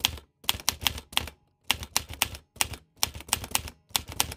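Typewriter keystroke sound effect: sharp mechanical key clacks in short irregular runs of two to four, about fifteen strikes in all, with brief pauses between the runs.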